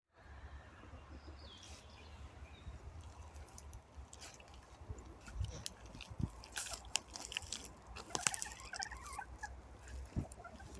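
Chickens feeding, with many sharp pecking clicks, thickest in the second half, and a few short clucks about eight seconds in.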